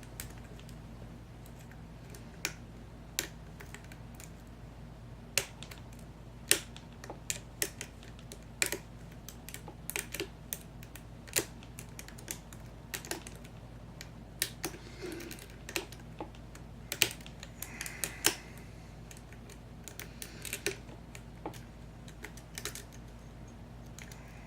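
Lock pick and tension wrench working the pin stack of an American 5100 series padlock's cylinder: irregular sharp little clicks and ticks, a few louder than the rest, as pins are set and the lock is still not open.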